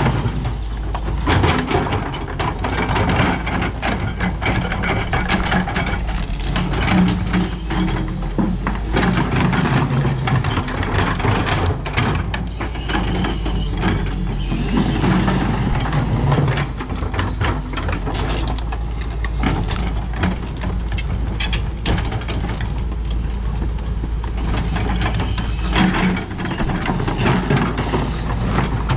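Doosan DX225LCA hydraulic excavator at work: its diesel engine running steadily, with frequent metallic clanks, knocks and clatter from the working machine.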